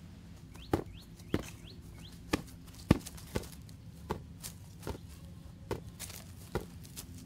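An inflatable beach ball batted and caught overhead by hand: about ten sharp slaps less than a second apart, the loudest about three seconds in.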